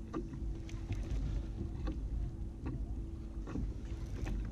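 Conventional fishing reel being cranked against a fish on the line, with a sharp click roughly every second, over low wind rumble on the microphone and a faint steady hum.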